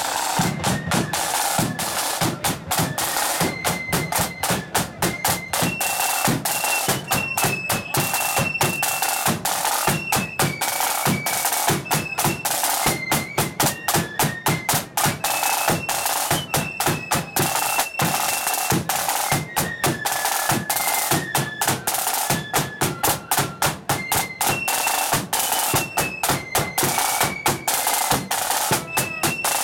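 Marching flute band playing a tune: a high flute melody moving note by note over fast, continuous snare side-drum rhythms and a bass drum.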